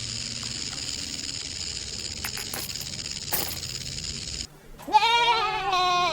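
A steady high hiss, then near the end a goat bleating: one loud wavering call that breaks into two parts.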